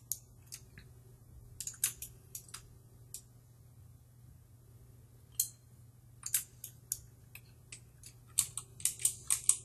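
Computer keyboard keys and mouse buttons clicking now and then, with a quicker run of clicks near the end, over a faint steady low hum.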